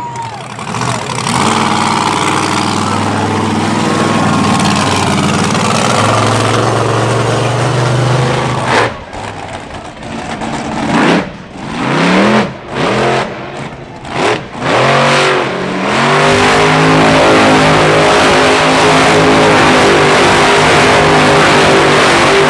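Monster truck engine running steadily, then revved in several short bursts with rising pitch, then held at high revs while the truck spins donuts in a cloud of tire smoke.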